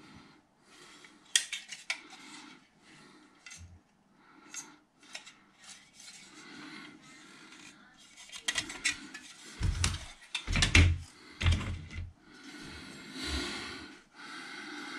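White plastic model-kit parts trees being handled, with light clicking and rattling of the plastic. A cluster of louder clatters and dull knocks comes about two-thirds of the way through.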